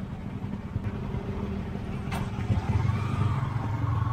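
Yamaha R15 V3 motorcycle engine running on the road. A brief click comes about two seconds in, and the engine gets louder about half a second later, with tones rising in pitch as it pulls away.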